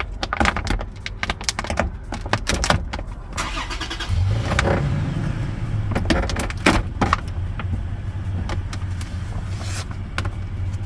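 Scattered clicks and knocks of hands and tools working on a van's door panel and plastic trim, over a steady low vehicle rumble that grows louder about four seconds in.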